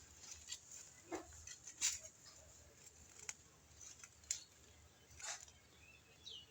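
Faint, scattered scrapes and knocks of digging in garden soil for sweet potato tubers, about half a dozen short sharp sounds roughly a second apart.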